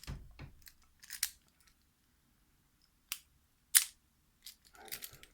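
A few sharp, separate clicks and taps from a Master Lock No. 37 padlock and its key being handled, the loudest a little before four seconds in.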